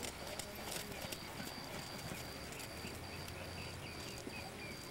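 Horses' hooves beating on a sand arena as horses are ridden past, the hoofbeats soft and muffled.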